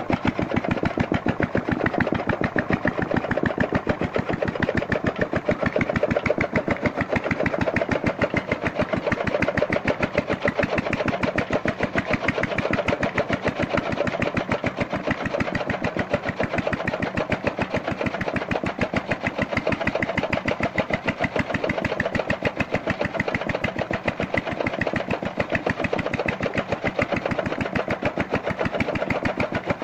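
Engine-driven chaff cutter running steadily with a rapid, even beat, its flywheel blades chopping green fodder as it is fed in.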